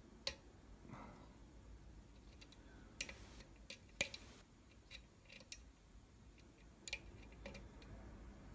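Faint, scattered metallic clicks of a lock pick and tension wrench working the pins inside a Falcon pin-tumbler lock during single-pin picking, a click every second or two.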